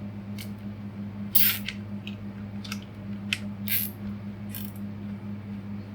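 Nylon cable ties being pulled through and cinched tight, several short zips and clicks over the steady hum of a desk fan.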